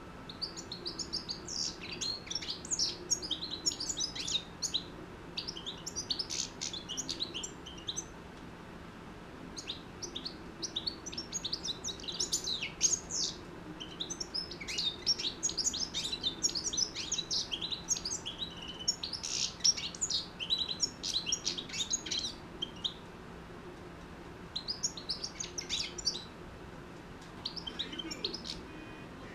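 Six-month-old European goldfinch singing its rapid, twittering song in long phrases, with short breaks about eight seconds in and again past the twenty-second mark.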